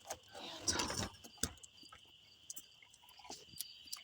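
Night insect chorus, crickets or similar, making a steady high-pitched drone, with rustling in the first second or so and a few scattered clicks.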